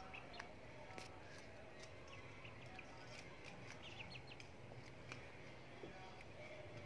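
Faint, scattered clicks of young chickens pecking at greens in a shallow dish and on concrete, with a few short, faint bird chirps.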